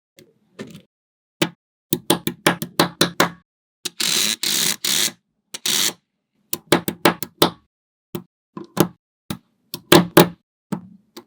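Small neodymium magnetic balls clicking and snapping together in irregular clusters of sharp clicks, with a rattling run of about a second and a half near the middle as a mass of balls rolls and clatters together.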